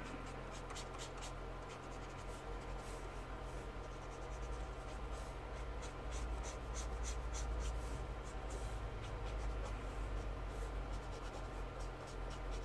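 Felt-tip marker rubbing on kraft paper in quick, repeated back-and-forth strokes as grey shading is blended out, over a steady low hum.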